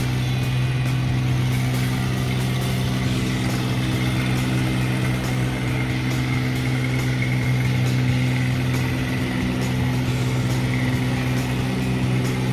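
Car engine idling, a steady low hum.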